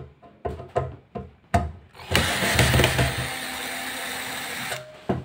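Cordless drill-driver backing the screws out of a metal power-supply case. A few short blips come first, then the motor runs for about three seconds and stops shortly before the end.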